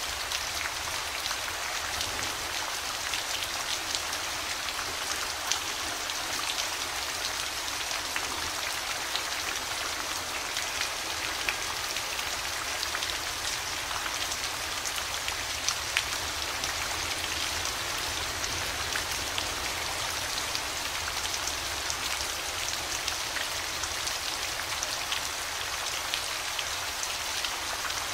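Steady rain falling, with the sharp ticks of single drops striking close by scattered throughout.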